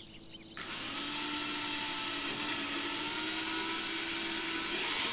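Cordless drill starting up about half a second in and running steadily as it bores a mounting hole, its motor whine creeping slightly up in pitch.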